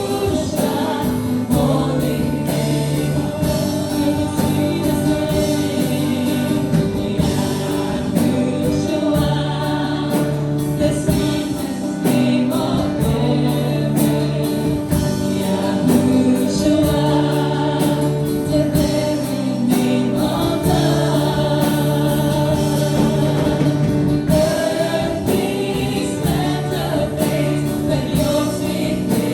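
A worship team singing a gospel praise song together in a group, over instrumental backing with a steady beat.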